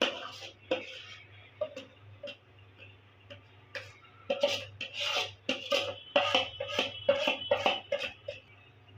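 Metal spoon scraping and clinking against a steel cooking pan while the thick jaggery-ginger mixture is worked out of it. It makes an irregular run of sharp knocks and scrapes with a short metallic ring, sparse at first and coming thick and fast in the second half.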